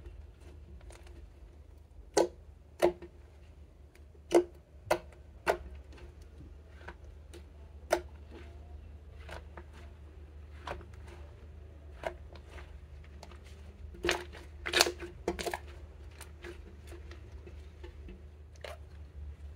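Thick slime squeezed, stretched and folded by hand, giving irregular sharp pops and clicks as it is worked, with the loudest ones in clusters a couple of seconds in and again about three quarters of the way through.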